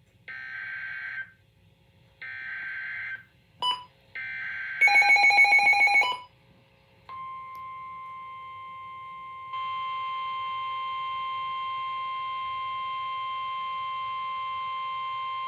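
Emergency Alert System weather alert tones: three short buzzy bursts of SAME header data, a loud pulsing electronic beep, then a steady warning alarm tone of about 1 kHz that gets louder partway through. Together they signal that a National Weather Service warning is about to be read.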